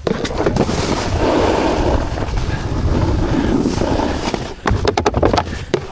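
Wind rushing over the camera microphone while moving, with a burst of sharp crackles and knocks about five seconds in.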